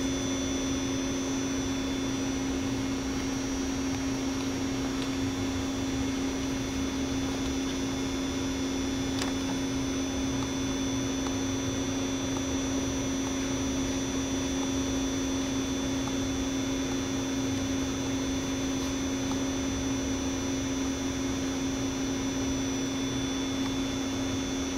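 A steady electrical hum: one constant low tone with a few fainter higher tones over an even hiss, unchanging.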